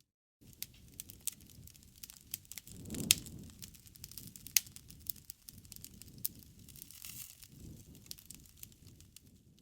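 Wood fire burning, with dense crackling and sharp pops of the burning wood over a low rumble of the flames; the two loudest pops come about three and four and a half seconds in. The sound cuts in after a brief moment of total silence at the start.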